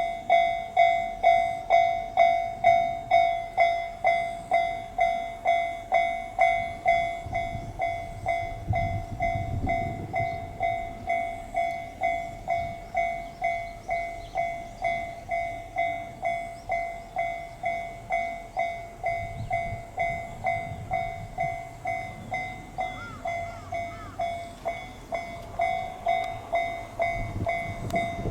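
Japanese railway level crossing warning bell ringing steadily at about two strokes a second. Under it a train's low rumble swells around ten seconds in and again near the end.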